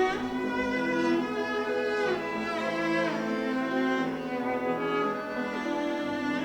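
Bowed string instruments, violin and cello, playing sustained notes together, with several sliding changes of pitch.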